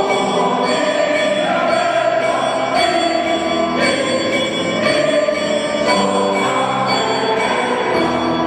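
Choir singing in a large church, sustained chords changing about once a second.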